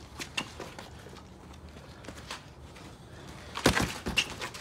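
Sharp thuds of boxing gloves landing punches and shoes scuffing on concrete during sparring: a few single knocks at first, then a quick flurry of hits about three and a half seconds in.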